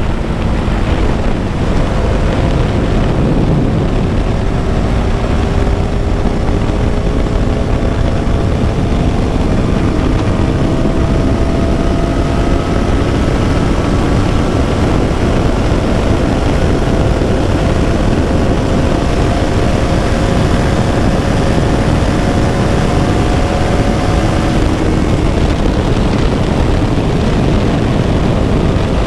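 KTM Duke 200 single-cylinder engine running under way, its pitch climbing slowly and steadily for most of the stretch before easing off near the end, over a heavy low rumble.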